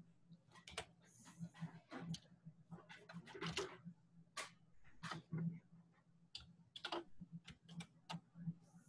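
Faint, irregular clicking and tapping of a computer keyboard and mouse.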